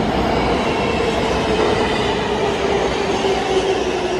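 R143 New York subway train running into an underground station: a loud, steady rumble of steel wheels on rail, with a whine that slowly falls in pitch.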